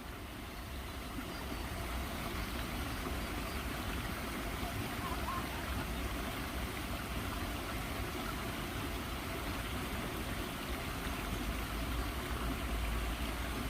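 Running water, a steady even rushing, with a low rumble underneath.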